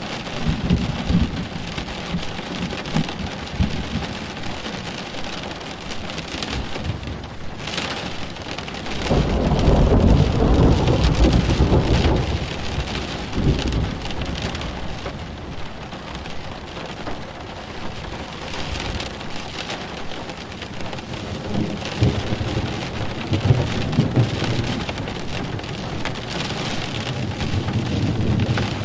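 Steady rain falling during a thunderstorm, with a loud roll of thunder about nine seconds in that lasts some three seconds, and softer rumbles of thunder in the last third.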